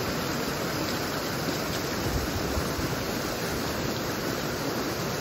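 Steady rushing of a rocky mountain stream.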